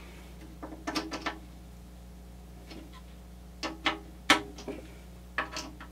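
Hand screwdriver turning small screws into a metal computer-case panel: short clusters of sharp clicks and metallic rattles, about a second in, twice around the middle with the loudest click, and again near the end.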